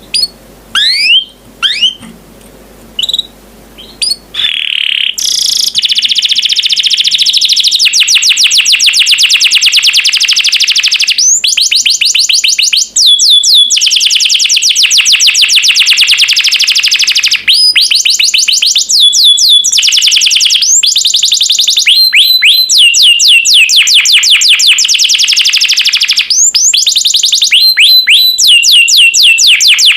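Domestic canary singing: a few separate rising chirps at first, then from about five seconds in a loud, almost unbroken song of very fast rolling trills, broken now and then by falling whistled notes.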